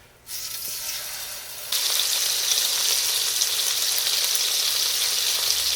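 Ground-turkey slider patties frying in hot oil in a skillet: a steady sizzle that grows louder a little under two seconds in and then holds even.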